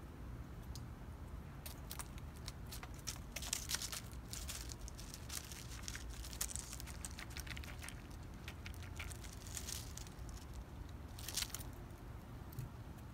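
Fox squirrel gnawing and crunching food up close: irregular clusters of crisp crackling clicks, with short pauses between.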